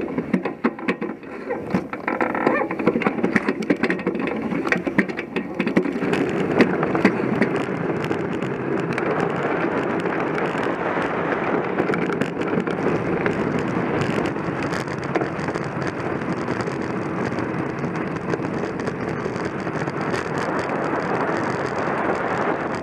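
Steady rushing scrape of an ice Blokart's skate runners sliding over snow-covered lake ice at speed. Sharp knocks and rattles in the first few seconds, then an even, continuous sound.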